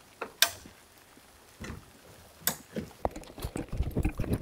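Sharp knocks and clicks from handling tools and blocks while setting the shed onto its footings: a few single knocks, then a quick, irregular run of small taps from about three seconds in.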